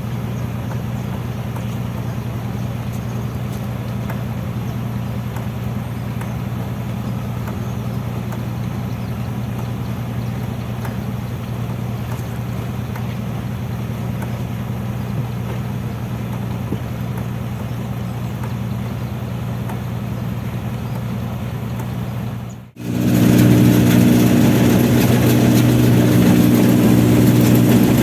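Rice combine harvester's engine running steadily with a low, even drone. Near the end it cuts out for a moment and comes back louder and fuller.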